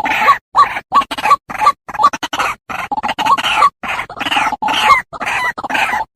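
White-breasted waterhen calling: a rapid run of harsh, croaking 'ruak-ruak' calls, about two a second, from a lure recording for trapping the bird.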